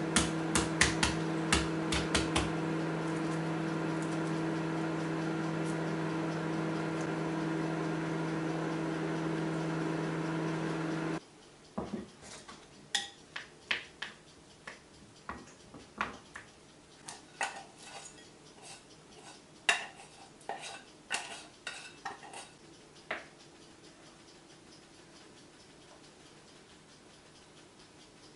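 A microwave oven runs with a steady mains hum, with a few sharp clicks over it at first, and cuts off suddenly about eleven seconds in. Then come light, scattered clinks and scrapes of a spoon against a bowl as rice is stirred and mixed.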